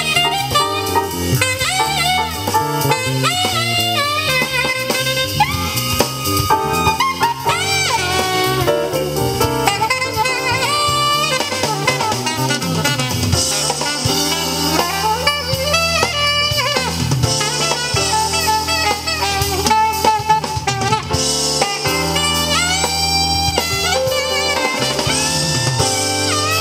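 Instrumental passage of a Thai song with a melodic lead over a drum beat and heavy bass, played loud through a pair of LSM FR112M 12-inch PA loudspeakers on a stand.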